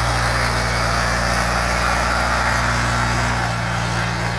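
A boat's engine running steadily under a loud rush of turbulent water pouring through a sluice gate. The engine note shifts slightly a little over three seconds in.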